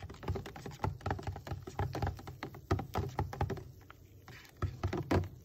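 Metal spoon stirring in a plastic cup of water, its bowl knocking against the cup's sides in quick, irregular light clicks as sea moss gel is dissolved.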